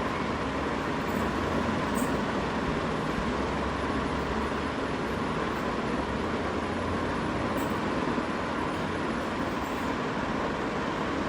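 Steady rumble and hiss of a moving vehicle, unchanging throughout.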